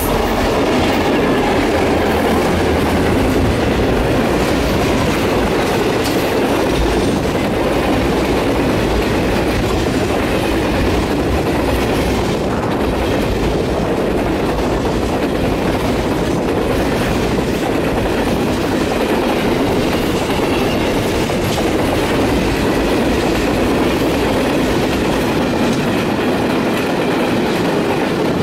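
A train rolling steadily past at length, its wheels clattering over the rail joints.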